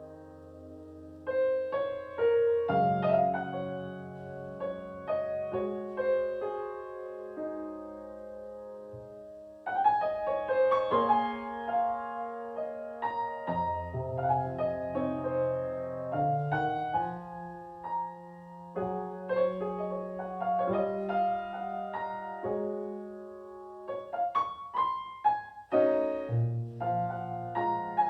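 Piano playing chords and a melody, the struck notes ringing and fading, in phrases with short lulls between them.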